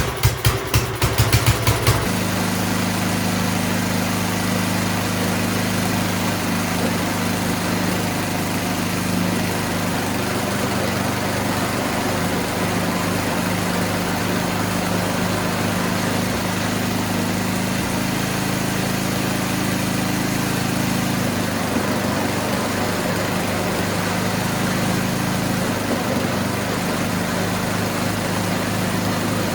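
Toro Power Shift 624 snowblower engine being cranked with quick, even pulses, catching about two seconds in and then running steadily. Its note changes for a few seconds around twenty seconds in while the newly fitted auger and drive belts are tried out.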